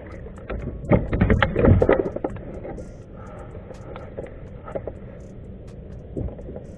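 Hollow knocks and clatter of a paddle and fishing gear against a plastic kayak hull, in a quick flurry about a second in. After that only a few small knocks.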